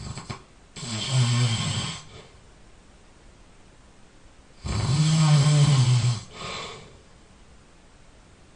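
A person snoring loudly while asleep: two long snores about four seconds apart, the second one louder and followed by a shorter, softer breath.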